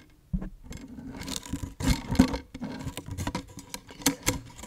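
Clear plastic packaging tube of a wire scalp massager handled and opened right at the microphone: irregular scraping and rustling of the plastic with sharp clicks, loudest about two seconds in and again near the end.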